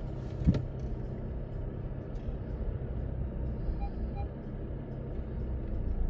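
Car cabin as the VW Golf MK7 reverses slowly: steady low engine and road rumble, a short knock about half a second in, and two short faint beeps about four seconds in, typical of the parking sensors.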